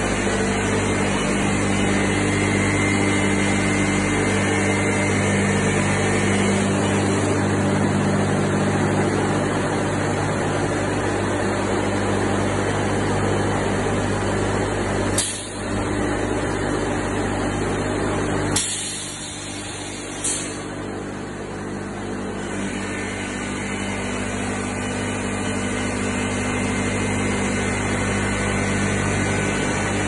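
Pallagrosi sawing machine running, a steady machine hum of electric motors with several low tones. Three short, sharp air hisses from its pneumatics about fifteen, eighteen and twenty seconds in, after the second of which the hum drops for a few seconds and then builds back.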